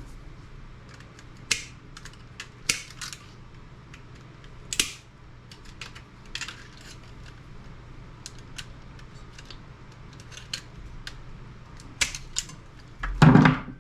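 Scattered clicks and light knocks of plastic and metal parts being handled as a CRT monitor's copper-wound deflection yoke is worked on, with a louder clatter near the end.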